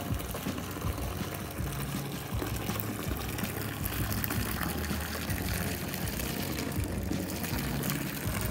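Steady rushing of moving water, with faint music underneath.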